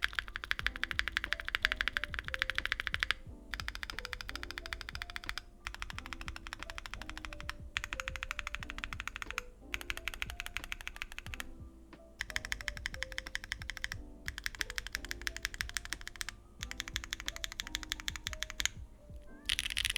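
Fast typing on a mechanical keyboard fitted with Bsun Cliff tactile switches (polycarbonate housing, nylon bottom) in a Neo60 Core with a carbon fibre plate, no foam and GMK keycaps. The keystrokes are crisp, high-pitched and sharp, coming in quick runs broken by short pauses, with soft background music underneath.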